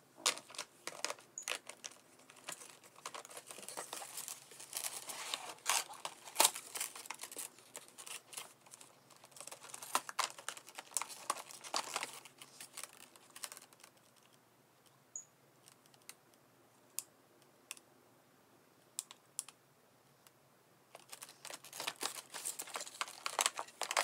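Packaging of a nail kit handled by hand: plastic wrap and paper rustling and crinkling, with many small clicks and taps as items are lifted out of the box. About halfway through it thins to a few scattered clicks, and the rustling picks up again near the end.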